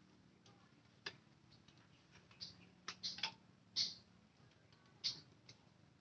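Scattered sharp clicks and taps of small parts and tools being handled, about eight in all, bunched together around three seconds in.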